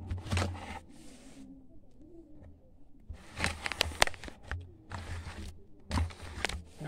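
Scattered rustling, scraping and clicking handling noises as hands work lotion into wet curly hair extensions and the handheld phone is moved about, with a quieter spell about two seconds in.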